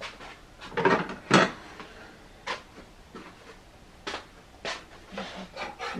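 Irregular knocks and clatters of things being handled in a kitchen, a few single strikes spread over the seconds, the loudest two close together about a second in.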